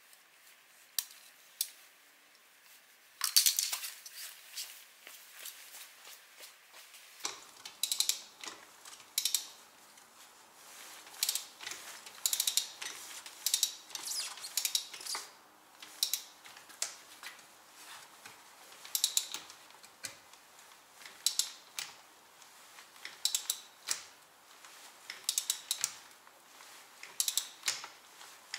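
Metal hand tools clinking and clicking against metal car parts, in short irregular clusters of sharp clicks and clanks that start about three seconds in and recur every second or two.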